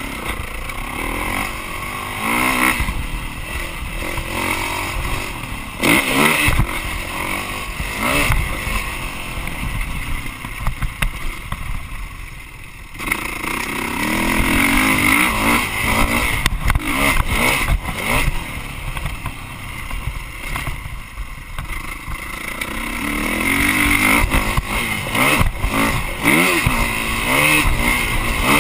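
Dirt bike engine revving up and down with the throttle and gear changes while being ridden, heard from a camera on the handlebars, with knocks and clatter from the track. The engine eases off briefly a little under halfway through, then pulls hard again.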